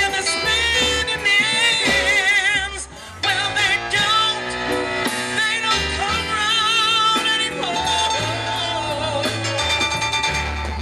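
A live band with a woman singing, her held notes wavering with a wide vibrato over upright bass, drums and horns. The music drops off briefly about three seconds in.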